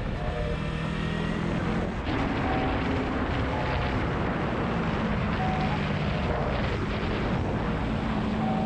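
Yamaha R3 parallel-twin engine with a Gori Pipe aftermarket muffler, ridden at speed, its note rising and falling with the throttle through the curves. Steady wind and road rush lie over it.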